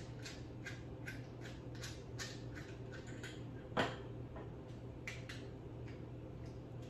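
Small sharp clicks at an even pace of nearly three a second as a timer is set by hand, then one louder knock about four seconds in and a few scattered clicks after, over a low steady hum.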